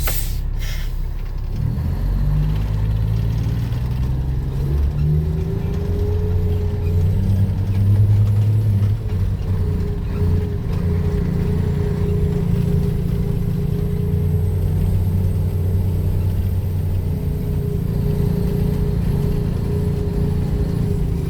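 Diesel engine of a Hitachi 870 large excavator running under load, a heavy low-pitched drone. A steady higher whine joins about five seconds in.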